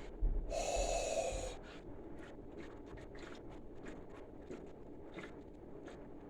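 A loud sharp breath about a second long, then steady gulping as Sprite is chugged, about two to three swallows a second.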